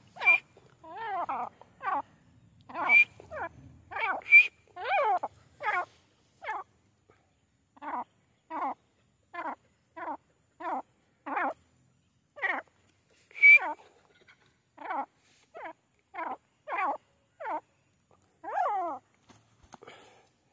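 Grey francolin calling: a steady series of short, sharp calls, a little more than one a second, some topped with a high squeaky note, with a brief pause about seven seconds in.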